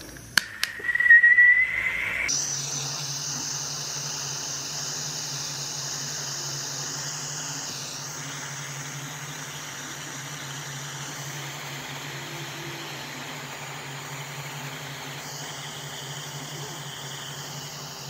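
Butane soldering iron with its tip removed, used as a mini torch: a couple of clicks as it is lit and a short rising whistle, which about two seconds in gives way to the steady hiss of the burning gas.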